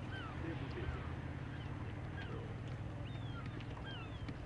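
Seabirds calling: many short chirping calls, some rising and some falling, scattered throughout over a steady low rumble.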